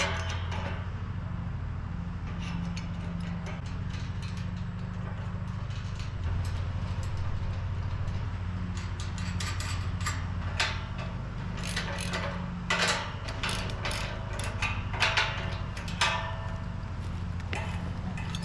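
Metal farm-gate hardware clanking and clicking as a gate is fitted, with scattered knocks that bunch together in the second half. A steady low hum runs underneath.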